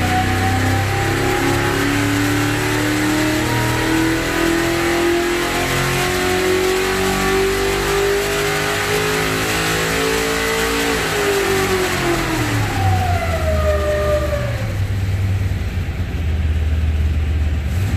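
Rebuilt V8 race engine for a 1969 Corvette making a wide-open-throttle pull on the dyno: the revs climb steadily for about eleven seconds, then the throttle closes and the revs fall back and settle to idle.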